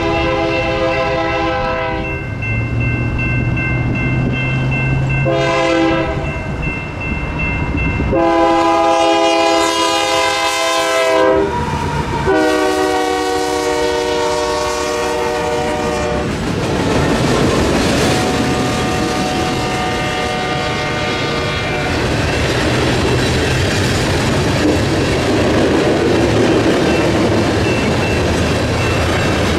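Diesel locomotive air horn of a loaded BNSF coal train sounding a crossing signal in four blasts: one ending about 2 s in, a short one, then two long ones, the last slightly lower in pitch. From about 16 s on the horn stops and the steady rumble and clatter of the loaded coal cars rolling over the crossing takes over.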